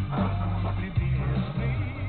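Background music with a steady bass line, laid over the clip.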